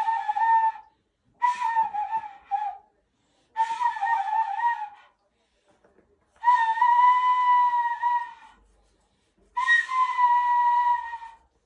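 A person making a simple tune in high, clear, whistle-like notes: five short phrases of one to two seconds each, staying around the same pitch with a slight waver, with short pauses between them.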